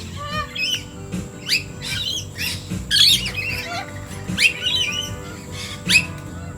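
Wild Australian birds calling, a busy run of short chirps and squawks, loudest about three and six seconds in, over soft background music.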